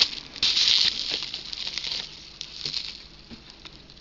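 Plastic bubble wrap rustling and crinkling as it is handled and pulled about inside a packing box. It is loudest in the first second, then fades into lighter, scattered crinkles.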